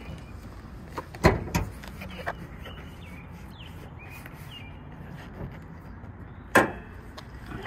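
Two loud, sharp thumps, one about a second in and one near the end, with a few lighter knocks between, over a steady outdoor background with faint high chirps.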